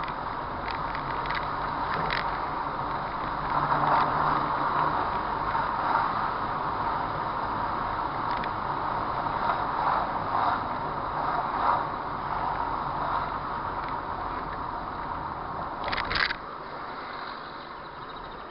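Car driving, heard from a dashcam inside: a steady rumble of tyres on brick paving with scattered clicks and rattles. A sharp clack comes near the end, and then the noise drops as the car reaches smooth asphalt.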